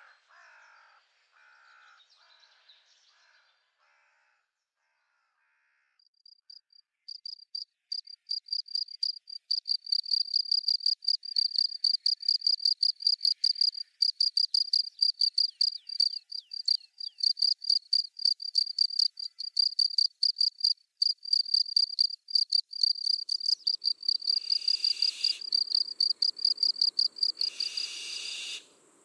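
An insect, cricket-like, singing a loud, fast, steady run of high chirping pulses from about six seconds in, after a few faint fading calls at the start. Two short bursts of noise come near the end, and the sound stops abruptly.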